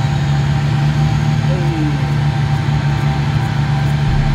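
Turbocharged Toyota 2JZ straight-six running steadily on an engine dyno, its revs settled after a pull, with a constant low drone.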